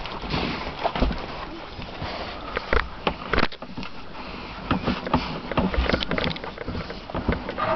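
24-day-old German Shepherd puppies nursing: irregular snuffling and sucking with scattered small clicks and rustles as they feed and shuffle against one another.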